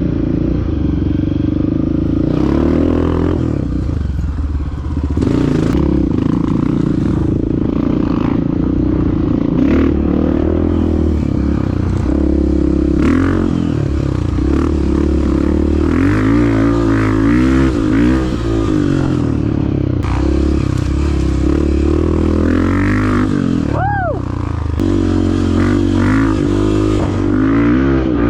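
Dirt bike engine running while being ridden, its pitch rising and falling over and over with the throttle.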